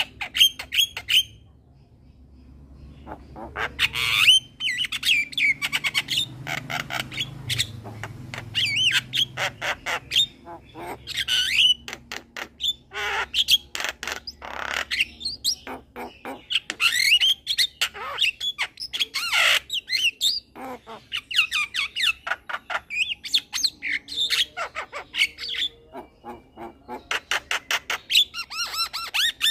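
Young male Javan myna singing a long, busy run of squawks, whistled notes and rapid clicking chatter, with a short pause about two seconds in.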